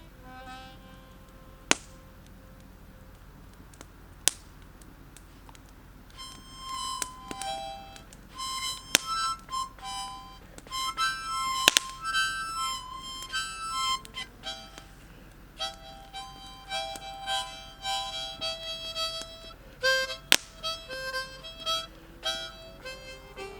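Harmonica playing a melody of held notes, sparse and soft at first and fuller from about six seconds in. Four sharp pops stand out above it.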